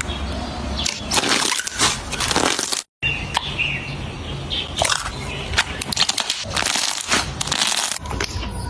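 Slime being squished and pressed by hand, making a run of crackly, popping clicks. The sound cuts out completely for a moment about three seconds in.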